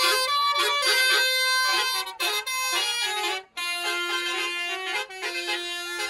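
Basuri musical air horn on a vehicle playing a tune: a string of held notes stepping from pitch to pitch, breaking off briefly about two and three and a half seconds in.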